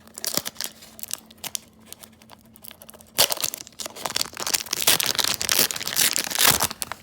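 A Pokémon card booster pack's foil wrapper being crinkled and torn open. Light crinkling comes first, then a louder stretch of tearing and crinkling from about three seconds in.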